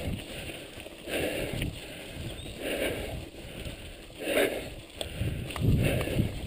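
Mountain bike riding over a rough gravel track: tyres crunching on stones and the bike rattling, with a rhythmic swell about every second and a half and heavier rumbling bumps near the end.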